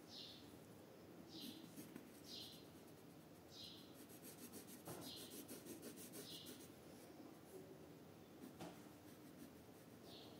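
Faint scratching of a colored pencil shading paper in quick back-and-forth strokes. Short high chirps come about once a second through it, with a longer gap near the end.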